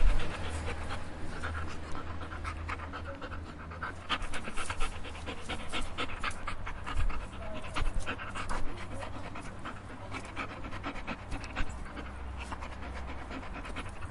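Dog panting, quick short breaths in and out at several a second.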